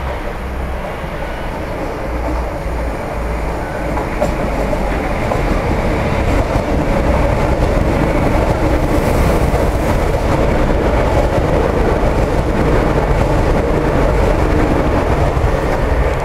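Two coupled Renfe Civia electric multiple units (463 and 465 series) running into the station on an R2 service: the rumble of wheels on rail grows louder over the first several seconds, then stays loud as the cars pass close by.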